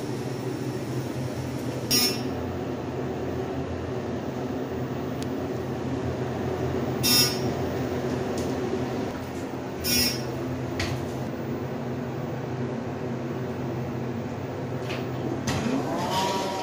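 Elevator car running between floors: a steady low hum with a few fixed tones in it. Three short beeps come about two, seven and ten seconds in.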